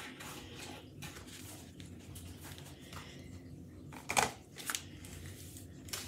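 Quiet handling of paper craft materials, with a sharp click about four seconds in and a lighter click half a second after.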